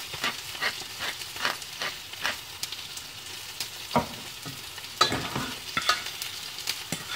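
Salmon frying in hot olive oil in a pan: a steady sizzle with sharp crackles of spitting oil. Two louder knocks come about four and five seconds in.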